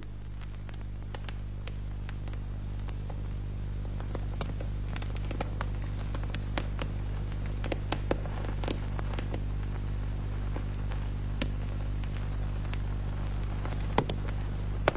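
Steady low hum with scattered clicks and crackles, the background noise of an old film soundtrack; a few louder clicks come near the end.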